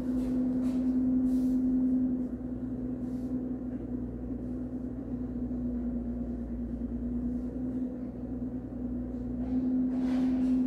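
A steady low hum holding one pitch, louder for the first two seconds and again near the end.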